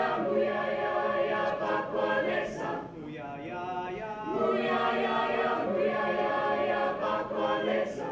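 Mixed high-school choir of male and female voices singing a cappella in several-part harmony, dropping softer for about a second near the middle before building again.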